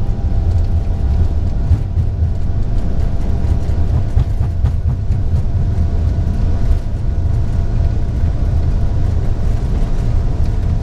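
Steady low rumble inside an Airbus A330-200 cockpit as the airliner rolls along the runway: jet engine noise and wheel and runway rumble, with a few faint steady tones above it and occasional small clicks.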